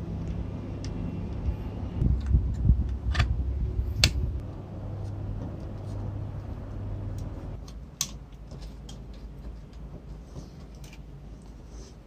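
Metal typewriter parts clicking and knocking as they are handled and fitted on the carriage: a few sharp metallic clicks and softer taps over a steady low hum that stops about seven seconds in.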